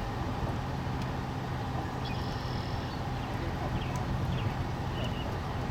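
A car running, a steady low hum with noise.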